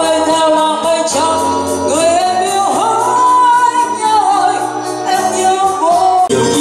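A female vocalist sings a melody of long held notes that slide in pitch, over a live band of electric guitars, bass and keyboard. Near the end the music cuts abruptly to a different passage.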